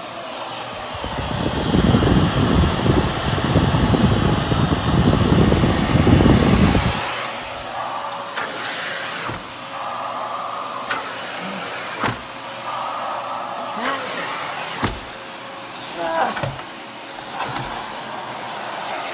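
Miele Classic C1 canister vacuum cleaner running steadily. A heavy low rumble lasts for the first several seconds, and a few sharp knocks come in the second half.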